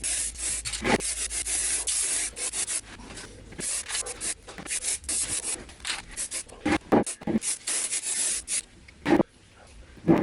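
Hand-sanding a rough 3D-printed plastic part where the print supports were, in a quick, uneven run of scraping strokes with a few short knocks, pausing briefly near the end.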